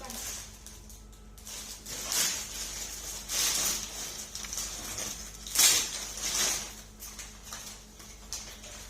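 Gift packaging rustling and crinkling as it is handled and torn open, in irregular bursts with the loudest about five and a half seconds in.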